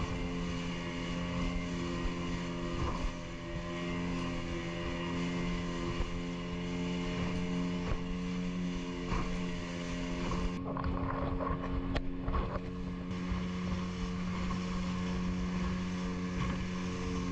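Small fishing boat's motor running steadily at speed, a constant drone, with water rushing and splashing against the hull and a few slaps of spray about two-thirds of the way through.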